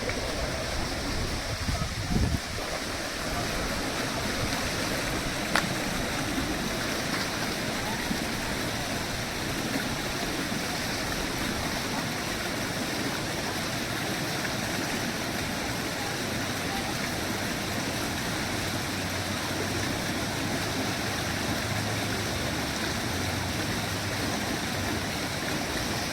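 A mountain stream rushing steadily, with a brief low thump about two seconds in.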